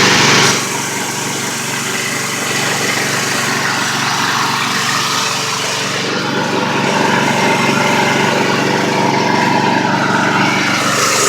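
Air compressor running steadily with an even, unbroken machine drone.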